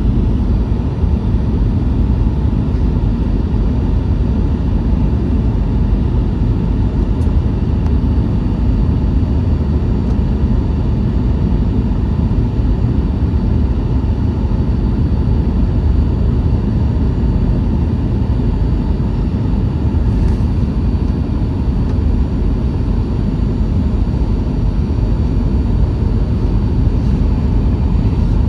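Steady cabin noise inside a Boeing 737-900ER in flight: airflow rushing past the fuselage and the hum of its CFM56 jet engines, with faint steady whining tones and no change in level.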